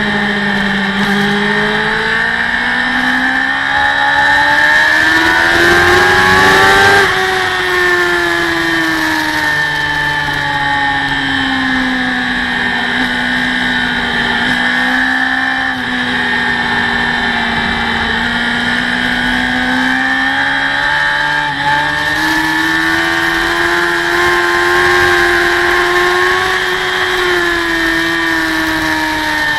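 Racing motorcycle engine heard from onboard, at full throttle on a circuit with wind rushing past. The revs climb for several seconds, drop sharply about seven seconds in, then climb again later and fall near the end.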